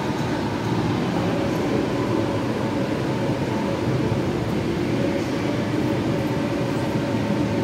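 Steady, loud rumbling background noise with no distinct events: the machinery-like din of a large indoor hall.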